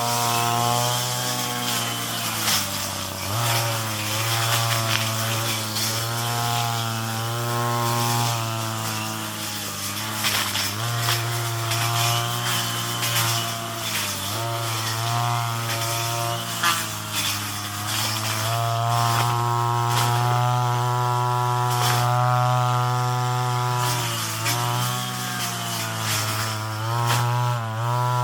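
Two-stroke brush cutter engine running at high speed, its note sagging and picking back up every few seconds under load.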